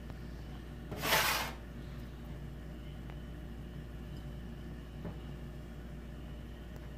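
Steady low room hum with a short hissy rustle about a second in and a faint tap near five seconds.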